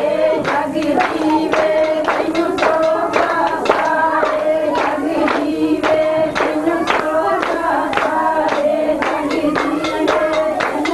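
A group singing a song to steady, rhythmic hand clapping.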